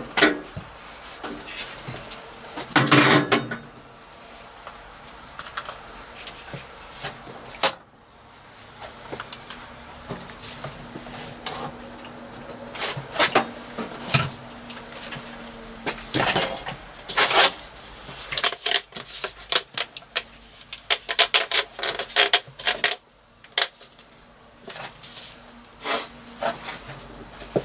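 Irregular clinks, knocks and clatters of hard objects being picked up and set down on a workbench, busiest in the second half, with a steady low hum for several seconds in the middle.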